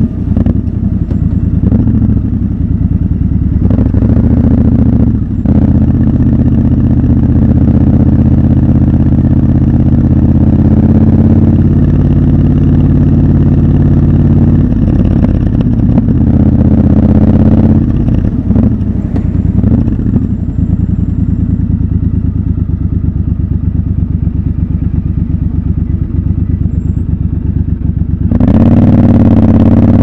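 Triumph Scrambler 1200 XC's parallel-twin engine running under way, heard from the rider's seat. The sound dips briefly a few times as the throttle eases, and the revs climb under acceleration near the end.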